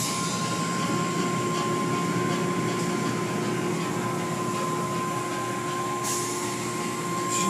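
Automatic car wash heard from inside the car: soft-cloth strips swishing and slapping over the windshield with water spraying, over a steady machine hum that gains a second, lower tone about a second in.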